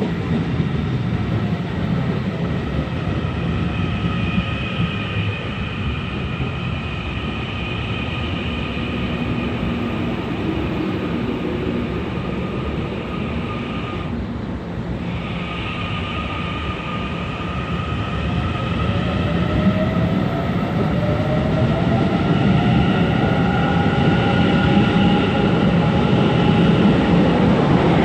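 Train running at a station: a steady rumble of wheels on rails with high whining tones that break off briefly about halfway through. A slowly rising tone and growing loudness follow in the latter part.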